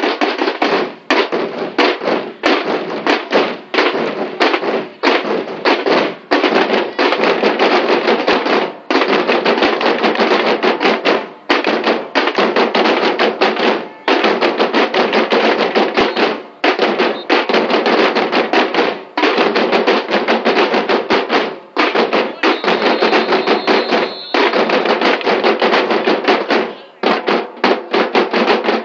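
A drum corps playing marching drums with sticks, all together in a fast, dense, loud rhythm broken by short pauses every second or two.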